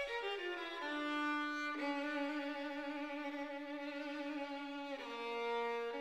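Background music: a violin playing a slow melody of long held notes, with a new note a little after the start, near one second, near two seconds and near five seconds.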